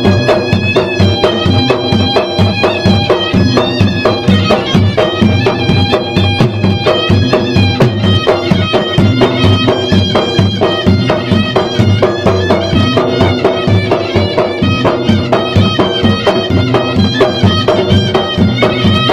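Lively Maros traditional drum ensemble: gendang drums beating a fast, dense rhythm under a shrill reed pipe playing a continuous melody.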